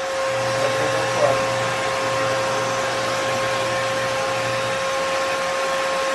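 Vo.Temm handheld vacuum cleaner running steadily: a constant motor whine over the rush of air.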